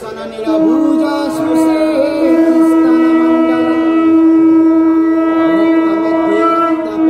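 Temple ritual horns blown in long, steady held notes during the lamp offering (aarti). A second, lower note joins about three seconds in and is held to the end.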